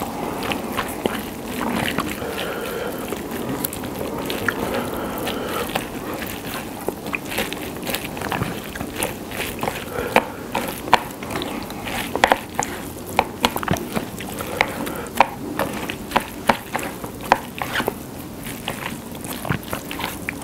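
Chopsticks stirring and tossing somen noodles through a wet, spicy whelk-salad sauce in a bowl, a sticky wet mixing sound with frequent sharp clicks of the chopsticks against the bowl, more of them from about a third of the way in.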